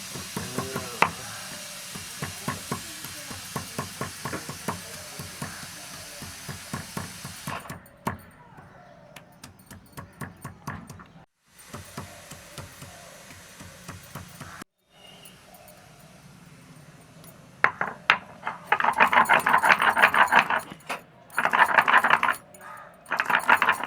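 Cooking-utensil sounds. First a steady hiss with many small clicks, like a steaming pot being stirred with a spoon. Then, after a few abrupt cuts, bursts of loud metal clattering and scraping.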